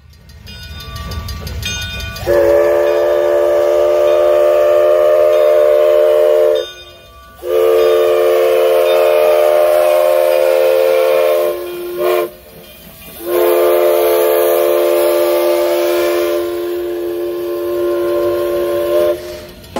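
Steam locomotive's chime whistle sounding a chord of several notes in the grade-crossing signal: two long blasts, a short one, then a final long blast. The locomotive is McCloud River Railroad No. 25, a 1925 Baldwin 2-6-2.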